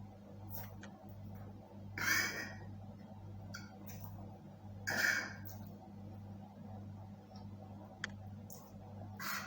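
Quiet eating sounds: small mouth clicks and two short breathy sniffs or slurps, one about two seconds in and one about five seconds in, over a steady low electrical hum.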